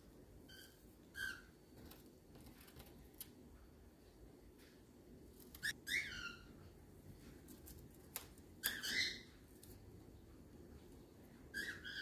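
A cockatiel giving short whistled chirps, about five spread out with gaps between them; the one about six seconds in falls in pitch, and the one near nine seconds is the loudest. A few faint sharp clicks come between them.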